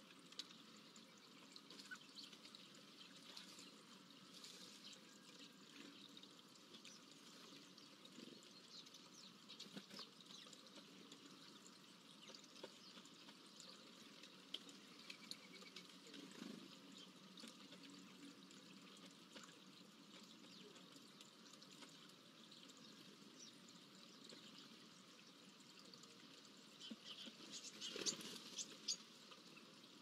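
Very faint outdoor ambience: a steady low hiss with scattered soft ticks and clicks from a male common pheasant pecking seed in a wooden feeder tray. A short run of louder clicks and rustles comes near the end.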